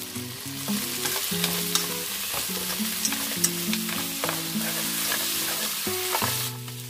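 Goat ribs with lemongrass sizzling in hot oil in a pan while being stirred with chopsticks, with scattered light clicks of the chopsticks against the pan.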